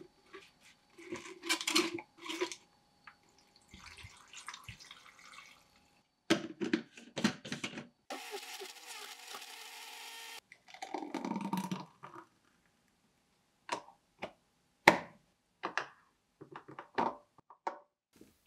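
KitchenArt countertop blender running for about two seconds midway, blending fruit and spinach into a green smoothie, then cutting off sharply. Around it, hard knocks and clinks of the jar being filled and set on the base, and of the cup being handled.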